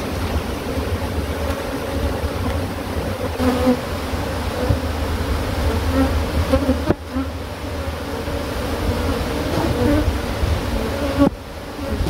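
A swarm of disturbed Cape honeybees buzzing loudly and steadily around an open wild colony as its comb is pulled away. Two brief sharp knocks come through, one a little past the middle and one near the end.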